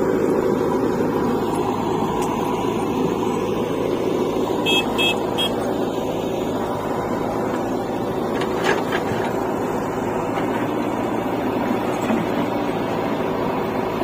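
Diesel engines of a JCB 3DX backhoe loader and an Eicher tractor running steadily while the backhoe dumps soil into the tractor trolley. Three short high beeps come about five seconds in, and a sharp knock a little after halfway.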